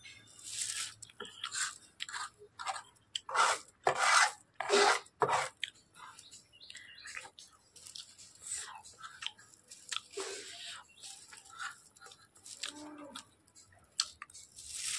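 Close-miked mouth sounds of eating Maggi instant noodles: wet chewing and slurping in a string of short irregular bursts, loudest around four to five seconds in.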